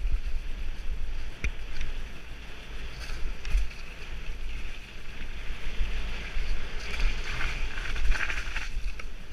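Wind buffeting the microphone of a mountain bike riding fast down a dirt trail, with tyres rolling over the dirt and scattered rattles and knocks from the bike. The tyre hiss grows louder in the second half.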